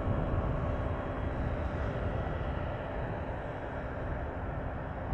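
Boeing 777F freighter's twin jet engines rumbling steadily as the aircraft rolls out on the runway after touchdown, a low, even roar with a faint steady hum.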